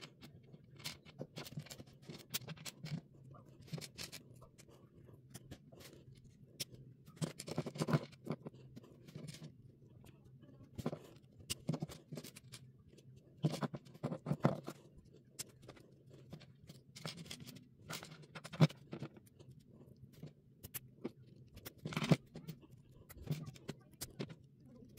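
Small plastic building bricks being handled and pressed together: irregular light clicks and rubbing, with a few sharper snaps.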